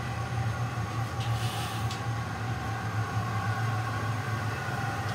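Steady low hum of a glassblowing studio's running glass furnace and its blowers, with a brief hiss about a second and a half in.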